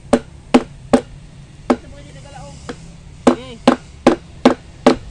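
Hammer blows: a steady run of sharp strikes about two and a half a second, pausing for about a second and a half midway.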